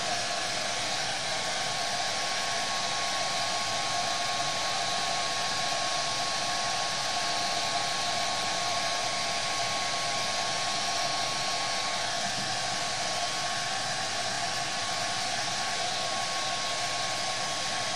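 Handheld blow dryer running steadily, a constant rush of air with a thin steady whine, drying wet airbrushed paint on suede to set it.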